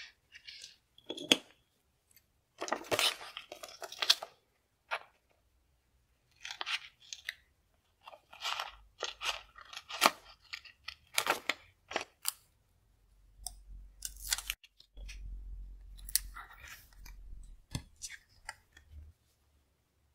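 Small scissors snipping through a translucent plastic sticker sheet in a series of short crisp cuts, with the sheet crinkling between the snips as it is handled.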